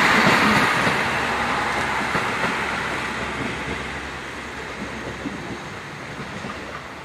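A train's running noise, loud at first, then fading steadily as it moves away.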